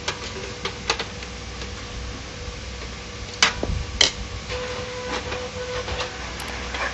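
Clicks and knocks of plastic and metal parts being handled inside an opened HP LaserJet 1010 printer, over a steady low hum. Two sharp knocks about three and a half and four seconds in are the loudest sounds.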